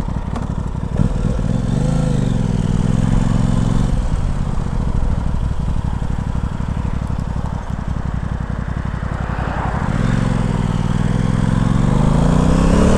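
Aprilia Tuono 660's parallel-twin engine pulling away and accelerating. Its pitch climbs from about two seconds in, drops around four seconds in as it changes up, then climbs again from about ten seconds in.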